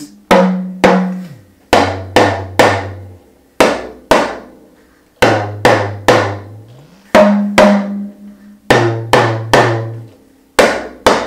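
Yoruba talking drum (gangan) struck with a curved stick, playing the mi-mi-re-re-re-do-do-re-re-re rudiment: pairs of higher notes answered by groups of three lower ones. The pitch slides up and down between notes as the drum's tension cords are squeezed and released under the arm.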